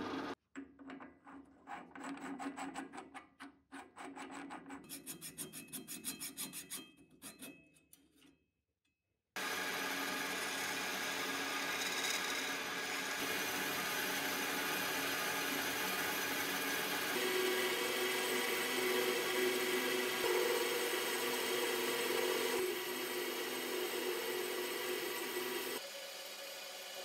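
Metal lathe machining a metal part: first a boring cut with rapid, uneven chattering ticks. Then, after a short silence, a long steady rasp of sandpaper pressed against the spinning part. Near the end it drops to a quieter turning cut.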